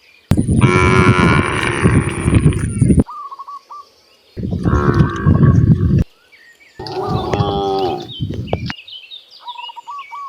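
Cows mooing: three long, loud moos, the first lasting nearly three seconds, with short high chirps in the pauses between them.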